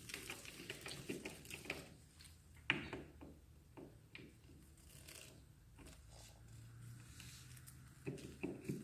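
Faint clicks and rustling of hands handling small electrical parts at a wall box, with one sharper click about three seconds in.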